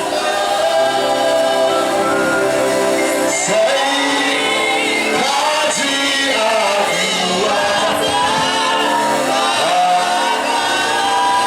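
Worship music: many voices singing together over sustained instrumental tones.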